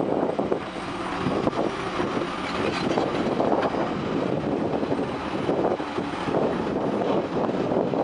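Caterpillar 345CL excavator's diesel engine running steadily under load as it works to drag a bulldozer out of the mud.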